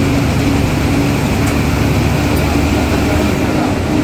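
Ashok Leyland bus's diesel engine running steadily under way, a constant low drone with road noise.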